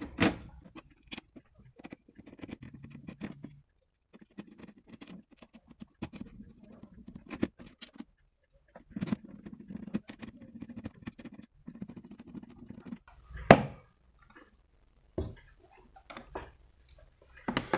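Handling noise of a replacement power-supply circuit board being fitted into the metal chassis of a satellite receiver: scattered clicks, taps and rubbing, with one sharper knock about 13.5 seconds in.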